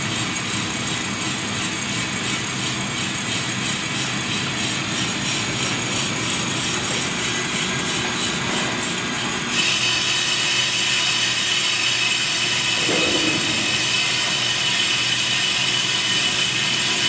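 FMC B-501 brake lathe running steadily with a brake rotor on its arbor while its cross-feed handwheel is cranked in. About nine and a half seconds in the sound gets louder and hissier, and stays that way.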